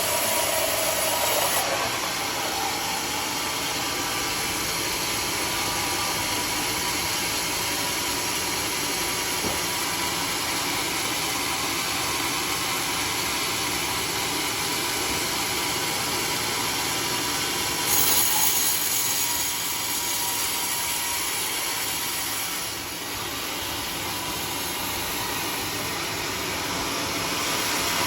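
Sawmill machinery running with a steady mechanical noise, changing slightly in tone about two seconds in and getting briefly louder about two-thirds of the way through.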